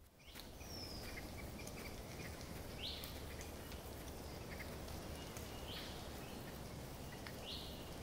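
Outdoor ambience: a steady low background rumble with a few short bird chirps, one falling near the start and three quick rising ones spread through the rest.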